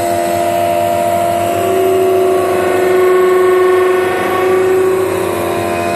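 High-speed CNC wood turning lathe cutting a spinning wood rolling-pin blank on its first pass: a loud, steady machine whine of several pitches at once, swelling slightly in the middle.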